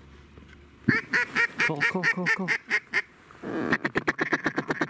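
Mallard duck call blown by a hunter: a loud run of quacks stepping down in pitch, then a rapid feeding chuckle of about a dozen notes a second near the end.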